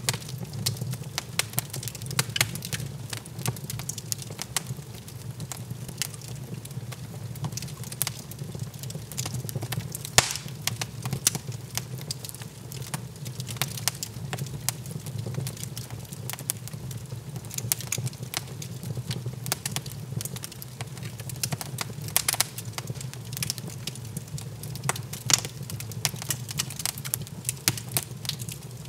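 Log fire in an open hearth crackling, with irregular sharp pops and snaps over a low, steady rumble.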